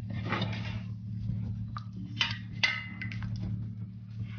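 Water boiling with cubed potatoes in a stainless steel pot, over a steady low hum, with a few light clicks and clinks in the middle.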